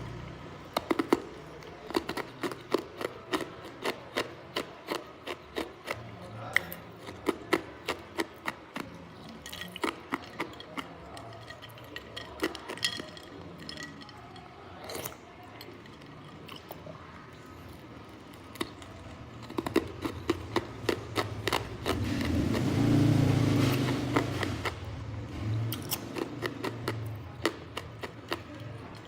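Hard ice being bitten and chewed close to the microphone: a string of sharp cracks and crunches, a few each second, with a louder stretch of dense crunching about three-quarters of the way through.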